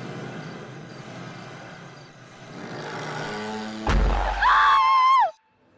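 Horror sound design: a low rumbling drone swells upward into a deep booming hit about four seconds in. A loud, high, wavering shriek follows, drops in pitch and cuts off suddenly, leaving near silence.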